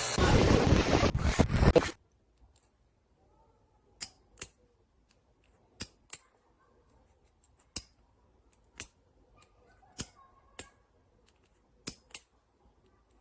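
A loud rough handling noise cuts off suddenly about two seconds in. Then come short sharp clicks, mostly in pairs, every second or two, from the JISULIFE handheld fan's power button being pressed over and over. No motor starts: the dropped fan does not turn on.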